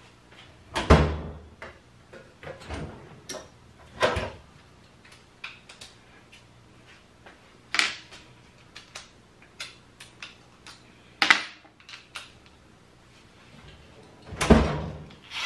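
Scattered knocks and clunks of hand tools being picked up and set down, the louder ones a few seconds apart and the heaviest, a dull thump, near the end.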